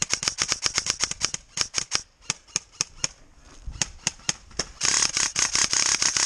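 ARES Amoeba airsoft electric rifle with a dual sector gear firing sharp clicking shots: a quick run of shots, then scattered single shots, then a long, very rapid burst lasting about a second and a half near the end.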